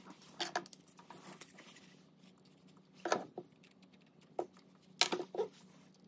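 Pliers and small frame parts clicking and clattering as a hexacopter arm clamp is worked onto a carbon fibre tube. Short clicks come in clusters: about half a second in, about three seconds in, once more a little after four seconds, and around five seconds. A faint steady hum runs underneath.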